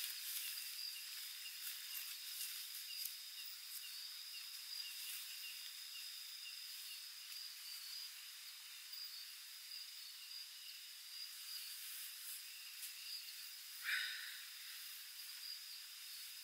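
Night insects calling steadily, one a continuous high trill and another chirping about three times a second. A brief rustle cuts in near the end.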